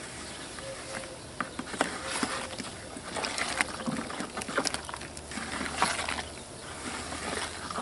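Long plastic spoon stirring a wet, gritty slurry of crushed ore in a plastic bucket: irregular scrapes and clicks as it drags through the mix.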